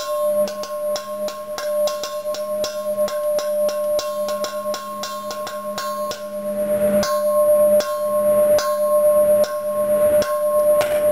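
Large stainless steel mixing bowl played as a singing bowl, a stick run around its rim: it rings with one steady tone and a fainter higher overtone, with a quick chatter of clicks from the stick on the rim. The ring swells louder about two-thirds of the way through.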